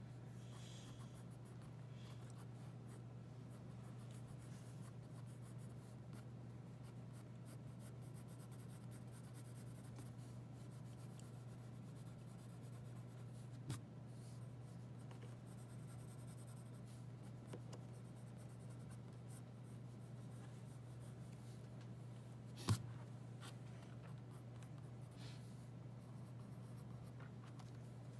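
Graphite pencil sketching on drawing paper: faint, scratchy strokes over a steady low hum. There is a small tap about halfway through and a sharp knock, the loudest sound, about three-quarters of the way in.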